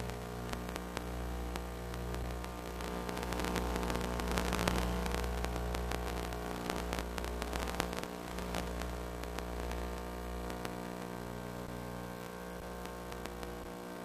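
Steady electrical hum with many overtones under a hiss of static and crackling clicks, as heard over an FPV radio link's audio. The crackle is densest in the first few seconds and again around eight seconds in.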